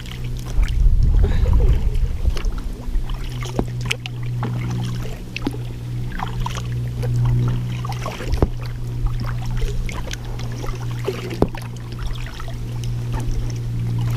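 Kayak paddling: scattered knocks and clicks of the paddle against the hull, with water dripping and splashing, over a steady low hum.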